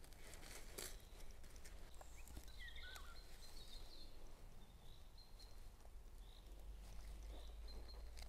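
Faint rustling and crunching of dry leaves and moss as a small knife cuts mushrooms at ground level, over a steady low wind rumble. A bird chirps faintly a few times about two to four seconds in.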